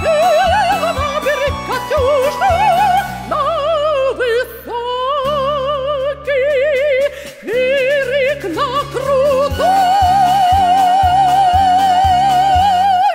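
Soprano singing in operatic style with wide vibrato over an instrumental accompaniment. These are the song's closing phrases, ending on a long high note held for the last three or four seconds.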